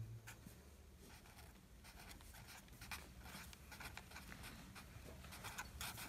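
Felt-tip marker writing on paper: faint, scratchy pen strokes as a word is written out.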